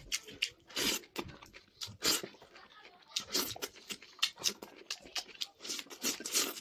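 Close-up eating sounds of noodles: wet chewing, smacking and slurping in quick, irregular bursts.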